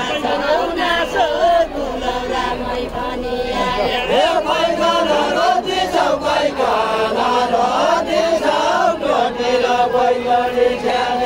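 A group singing a Deuda folk song of far-western Nepal without instruments: a chant-like melody with several voices holding and bending long notes together.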